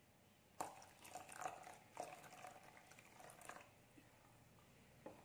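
Faint wet sloshing of thin rice-flour batter stirred with a plastic spoon in a ceramic bowl, with a light knock about half a second in.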